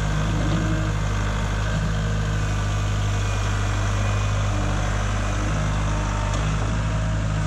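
Kubota compact tractor's diesel engine running steadily with a constant low hum.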